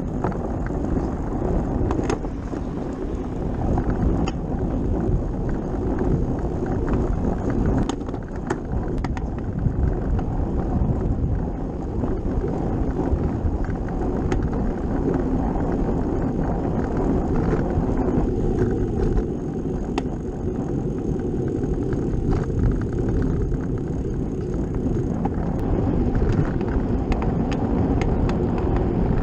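Steady road noise from a bicycle ride heard on a bike-mounted camera: tyres on tarmac with rumble from the road surface, and now and then a sharp click or rattle.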